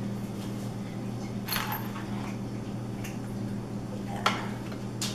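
A few light clinks and taps of metal assembly hardware (bolts, Allen wrench) being handled on a wooden table, the sharpest about four seconds in, over a steady low hum.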